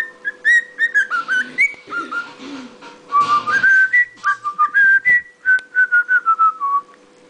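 Cockatiel whistling a tune: a quick run of short, clear notes that step up and down in pitch, then stops near the end.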